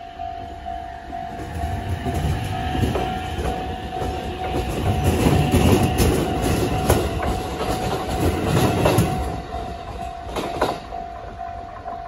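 Japanese level-crossing warning bell ringing in the 'Tōkai' electronic tone, repeating steadily while an electric train runs over the crossing. The train's rumble and the clatter of its wheels over the rail joints swell from about two seconds in, are loudest in the middle and fade near the end.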